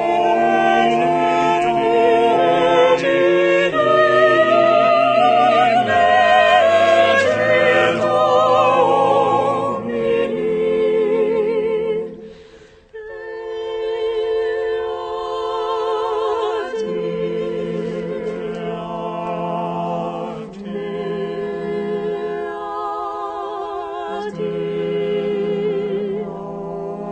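Sung music in a worship service: voices holding long notes with vibrato over a sustained low accompaniment. The music breaks off briefly about twelve seconds in, then resumes more softly.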